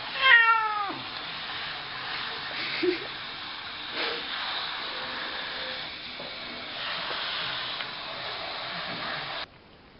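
A hand-held hair dryer blowing with a steady hiss on a wet Persian cat, and the cat giving one loud meow that falls in pitch near the start. The blowing cuts off suddenly near the end.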